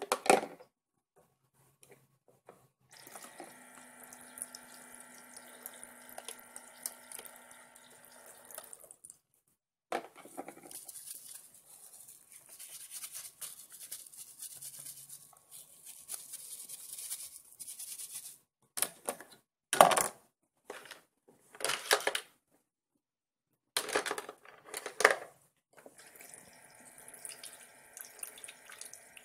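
Water trickling from a toy kitchen sink's faucet, with a steady hum from its small battery pump that runs, stops and starts again near the end. Plastic toy dishes knock and clatter several times in the second half.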